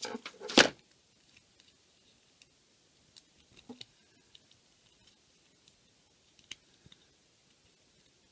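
Stiff plastic packaging being handled and worked loose from around an action figure: a burst of loud crackling in the first second, then scattered small clicks and rustles.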